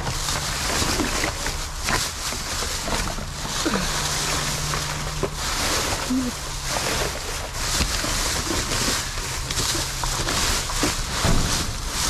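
Plastic garbage bags rustling and crinkling as they are rummaged through by hand, a dense run of crackles, with a faint low hum coming and going underneath.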